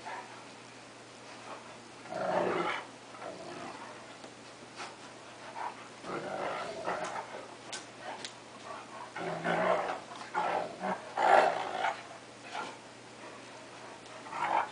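Two dogs, a cocker spaniel and a wolf–Akita mix, play-fighting with growls in repeated short bursts a few seconds apart, loudest a little past the middle. The growling sounds mean, but it is play, not aggression.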